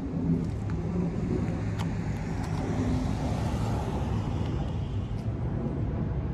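Steady low rumble of a motor vehicle, with a few faint clicks.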